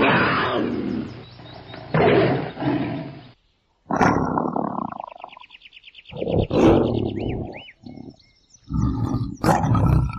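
Tiger roaring repeatedly, about five loud roars and growls with short pauses between them.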